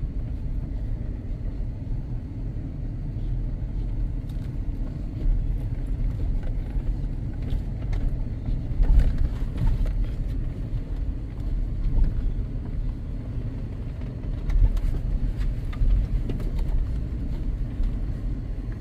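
Off-road vehicle driving slowly over a rough, washed-out dirt trail: a steady low engine and road rumble, with scattered knocks and jolts as it drops through dips, the strongest about halfway through.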